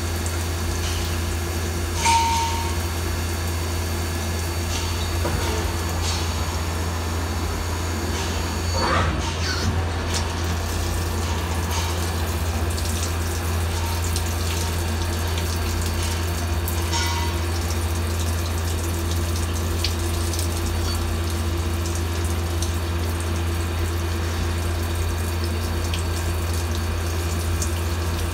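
Mazak SQT 200MSY CNC lathe machining a spinning part under flood coolant: coolant splashes and runs steadily over a constant low hum from the machine. There is a brief sharp sound about two seconds in and a short whir near nine seconds.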